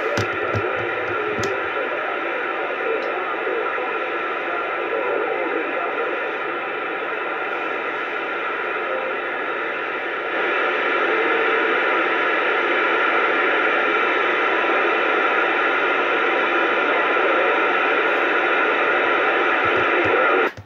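CB radio tuned to 27.285 MHz AM playing a steady hiss of static through its speaker; the hiss gets louder about ten seconds in and cuts off suddenly at the end.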